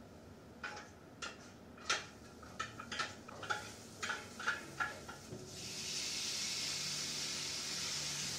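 A wooden spoon clicking and knocking against a stainless tray and a frying pan, then from about five and a half seconds a steady sizzle as ground pork goes into the hot oil with the garlic and onion.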